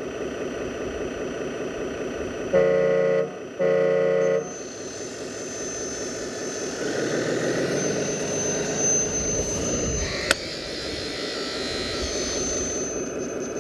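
Radio-controlled model dump truck and excavator running, with a steady engine-like rumble from their sound units. Two horn blasts of about a second each come about three seconds in. A thin high whine of the hydraulic pump follows as the dump bed lifts, and there is one sharp click about ten seconds in.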